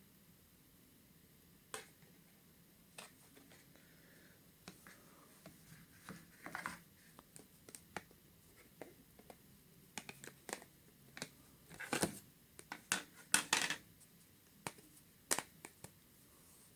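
Plastic back cover of a Wink City SE smartphone being pried off by hand: a run of small clicks, snaps and scratches, busiest and loudest about 12 to 14 seconds in.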